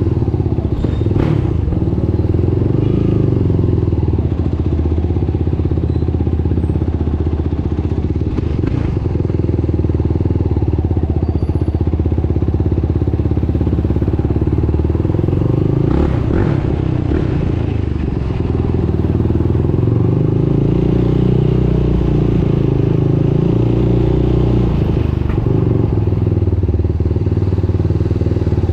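Yamaha YFZ450R sport ATV's single-cylinder four-stroke engine running under the rider at low speed, with the revs rising and falling a few times in the second half. A few brief knocks from the machine come through along the way.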